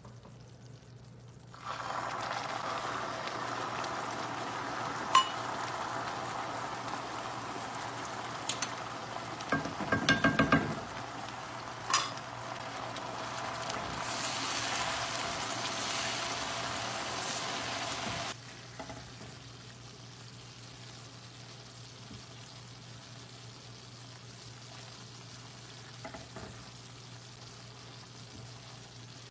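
Hot sugar caramel sizzling and bubbling in a nonstick pan as cream is stirred in with a silicone spatula, with a few sharp clicks and a short clatter of utensils against the pan. The loud sizzle drops suddenly to a softer, steady bubbling hiss about two-thirds of the way through.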